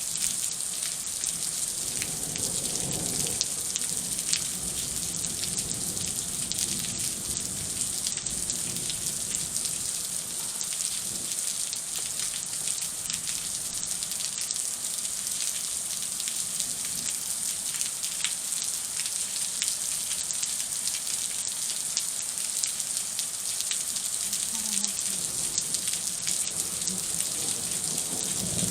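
Heavy thunderstorm rain falling steadily, a dense hiss of drops striking surfaces.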